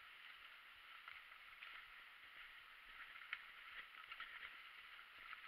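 Faint, muffled rattling and clicking of a mountain bike rolling over a wet, rocky trail, with a sharper knock about three seconds in.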